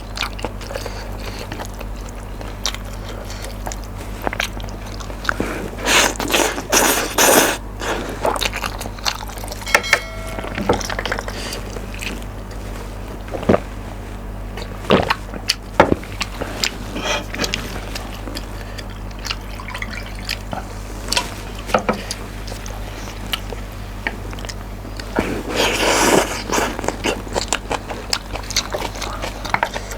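Close-miked eating of spicy mixed noodles: wet chewing and mouth clicks, with two longer, louder stretches about six seconds in and near the end.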